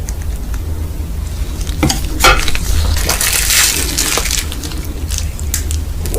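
Eating a plate of instant noodles: sharp clicks of utensils against the dish, with a crackly, crunching rustle about three seconds in, over a steady low hum.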